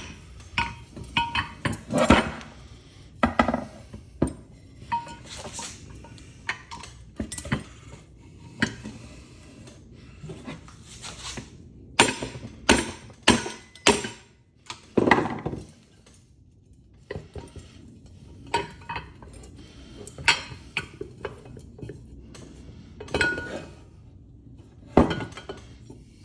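Irregular metallic clinks and knocks of tools against the metal parts of a ceiling fan being dismantled, some strikes ringing briefly, as a stuck piece is worked at.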